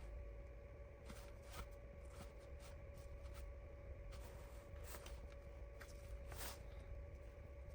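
Faint scattered clicks and light rustling from small phone parts and tools being handled, over a steady faint electrical hum.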